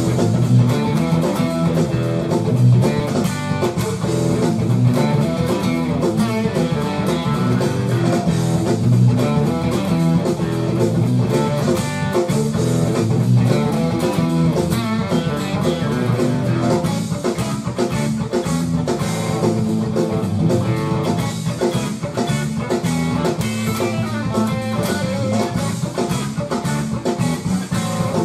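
Fast blues-rock boogie played on a Fender Telecaster electric guitar through a Marshall amp, over a steady drum beat.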